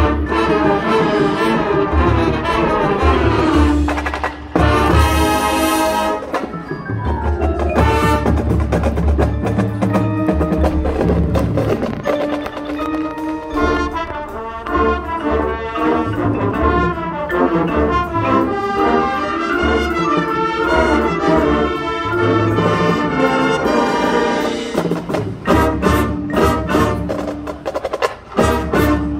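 High school marching band playing: brass with drums and a front ensemble of marimbas and other mallet percussion, with a bright shimmer of metal percussion about five seconds in and a run of sharp percussion hits near the end.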